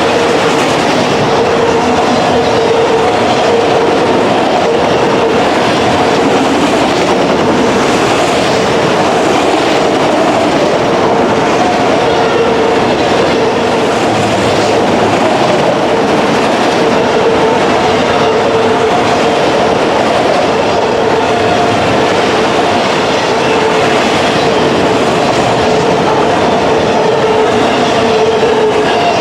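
Freight cars of a mixed manifest train rolling past, with a loud, steady clatter of wheels on rail and a constant whine running under it.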